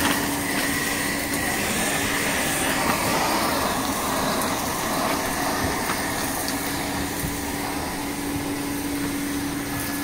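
A 110 V, 400 Hz backpack vacuum cleaner running steadily, its floor tool sucking over carpet, with an even rushing noise and a steady hum.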